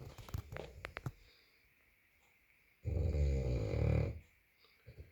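A sleeping bulldog snoring: a few short snuffles and clicks in the first second, a pause, then one long, loud snore about three seconds in that lasts over a second, with a couple of small snorts near the end.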